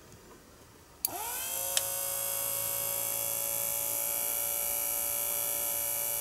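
Magic Bullet blender's brushed motor, run bare on a 24-volt DC power-tool battery, clicks on about a second in and spins up with a rising whine. It then runs steadily at about 3,500 RPM, with a brief click shortly after it starts.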